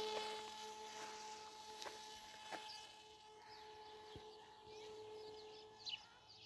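Small RC plane's brushless A2212 electric motor and 8x4 propeller whining at a steady pitch, fading away after a pass. Faint bird chirps are heard behind it.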